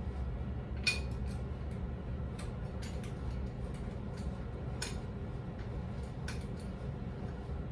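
Scattered light metal clinks and ticks of brake parts and hardware being handled and fitted at the axle hub, the sharpest with a brief ring about a second in, over a steady low hum.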